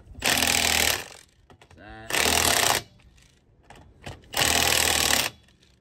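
Milwaukee cordless impact wrench hammering in three short bursts, each under a second, as it runs the truck's wheel lug nuts down tight one after another.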